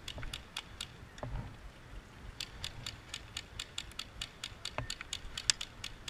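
Airsoft skirmish: scattered sharp clicks and snaps of BB fire, irregular, a few a second, with one louder snap about five and a half seconds in.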